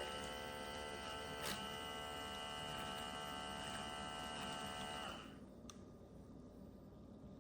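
Outin Nano portable espresso machine's small pump running with a steady electric hum, with a single click about a second and a half in; the hum stops about five seconds in.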